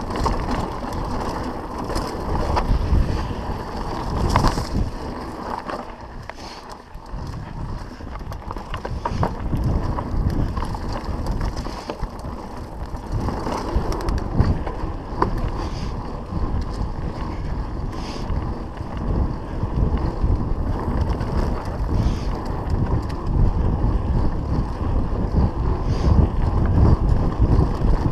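Mountain bike descending a dirt singletrack at speed: wind rushing over the microphone, tyres rumbling on the dirt and the bike rattling and knocking over bumps, easing briefly about seven seconds in.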